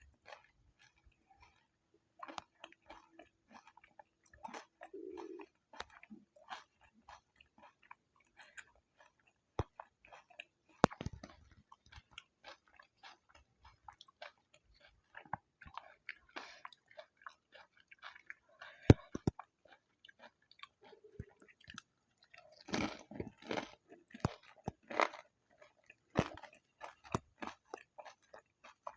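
Close-miked chewing and crunching of pani puri, the crisp hollow puri shells cracking between the teeth in irregular sharp clicks. A dense run of crunching comes near the end.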